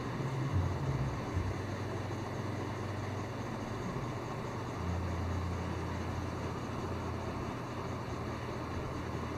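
Steady low background hum under an even hiss, with a few soft bumps in the first second and a half.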